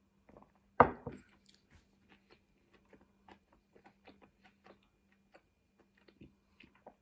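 A person eating close to the microphone: one loud bite about a second in, then steady, wet chewing with small clicks several times a second.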